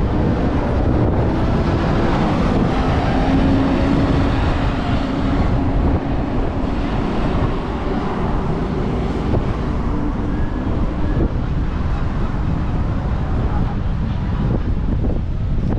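Strong wind buffeting the microphone with a constant low rumble. A vehicle's steady engine hum runs underneath from a couple of seconds in until about two-thirds of the way through.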